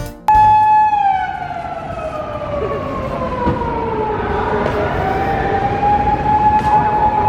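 Japanese police patrol car siren wailing: it cuts in suddenly at a high pitch, holds briefly, slides slowly down over about three seconds, then rises again and holds high near the end. The siren is being sounded to clear illegally parked cars off the street.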